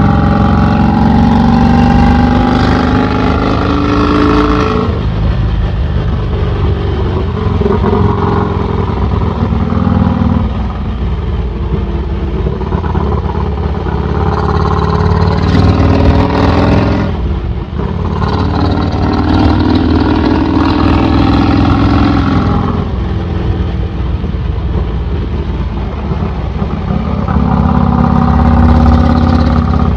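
Vincent 1000cc V-twin engine with an open straight-through exhaust, heard from the rider's seat while under way. The note climbs as it pulls, drops back sharply about five seconds in, and climbs again several times.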